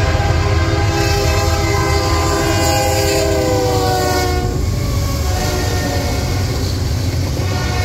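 A BNSF freight train's diesel locomotive blowing its air horn, several tones sounding together as a chord, over the steady rumble of the train. The horn's pitch drops a few seconds in as the locomotive passes, and the horn goes on fainter after that.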